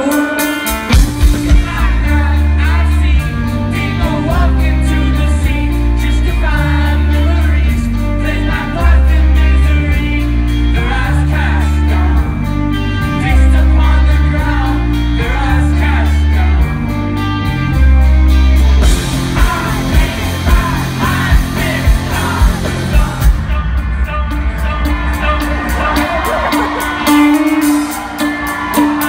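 Rock band playing live with a male lead singer, heard from the crowd: electric guitars, drums and a heavy pulsing bass line under the vocals. About two-thirds of the way through the bass drops away and sharp drum hits carry the beat.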